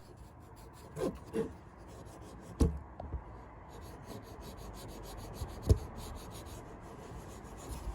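Cotton swabs rubbing and scrubbing over a keyboard's aluminium top housing, with two louder knocks, about a third of the way in and past the middle.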